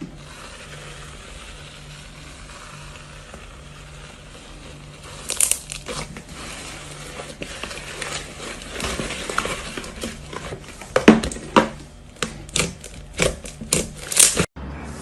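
Slime being squeezed and worked by hand: a faint hiss at first, then from about five seconds in an irregular run of sharp crackling pops and clicks, thickest and loudest in the last few seconds.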